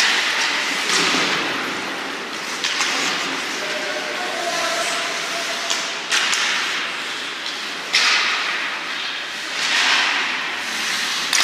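Ice hockey play: skates scraping and carving the ice in repeated swells of hiss, with a few sharp cracks of sticks and puck, about six, eight and eleven seconds in.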